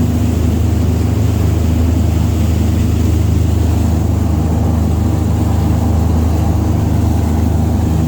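An engine running at a steady speed, a constant low drone with no change in pitch.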